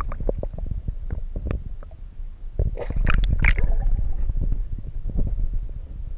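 Water sloshing and gurgling around a submerged camera, heard muffled and rumbling from underwater, with many small clicks and pops; it grows louder about two and a half seconds in.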